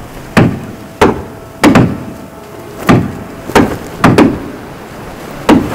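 A series of about nine loud, sharp knocks, struck at an uneven rhythm, each with a short ringing tail.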